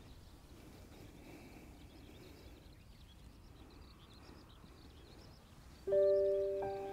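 Faint outdoor background with occasional high bird chirps. About six seconds in, background music starts suddenly with held notes, much louder than the background.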